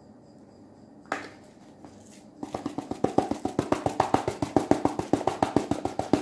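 Plastic spice jar of paprika shaken hard upside down, its sifter cap knocking in a fast, even rhythm of about nine shakes a second, starting about two and a half seconds in. A single knock comes about a second in.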